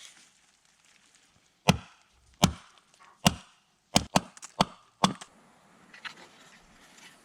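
Axe chopping into wood: about seven sharp blows at an uneven pace, the last few coming closer together.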